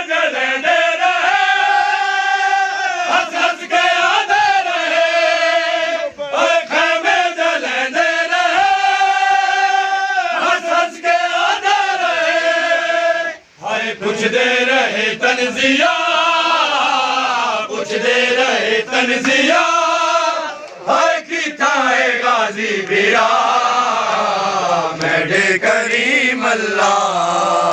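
Voices chanting a refrain of devotional Islamic poetry in long sung phrases, with no steady beat.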